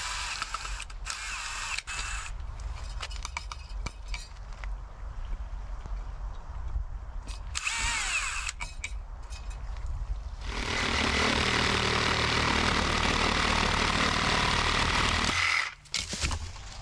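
Cordless drill/driver whirring in short runs, its pitch sliding up and down, as it backs the screws out of a metal bracket on a wooden post. About ten seconds in, a cordless reciprocating saw starts and cuts steadily through the wooden post for about five seconds, then stops abruptly.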